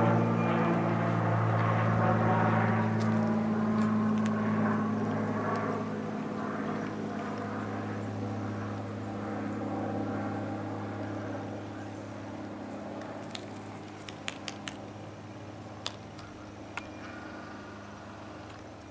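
A steady engine drone that fades gradually away, with a few sharp clicks near the end.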